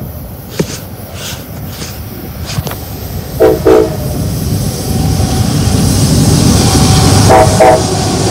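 Union Pacific diesel locomotive UP 3060, leading a coal train, sounds its horn in two pairs of short blasts. Its engine and wheel rumble grow steadily louder as it draws close.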